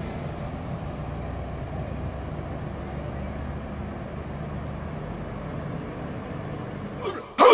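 Steady low rumble of idling school bus engines under outdoor background noise, with a brief louder sound near the end.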